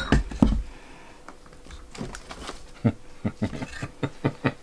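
A series of short knocks and clicks as small ceramic decor pieces are handled and set down on a table: a sharp click at the start, then a cluster of light knocks near the end.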